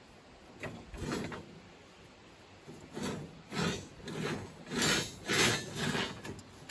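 Steel rebar scraping and grating against concrete block as it is worked back and forth by hand: a series of short scraping strokes, a couple at first and a louder run of about six in the second half.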